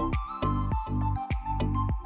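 Background music: an electronic track with a deep bass line, sustained synth notes and a steady beat.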